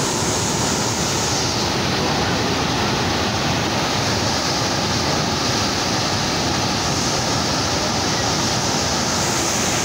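Turbulent white water pouring over a concrete weir and churning below it: a steady, dense rushing noise without a break.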